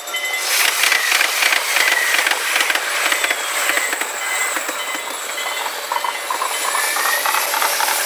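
JR Saikyo Line E233-series electric commuter train passing close by through a level crossing: a loud rushing hiss of wheels on rail, with faint clacks over the rail joints, building up about half a second in. Behind it the crossing warning bell rings in short repeated tones.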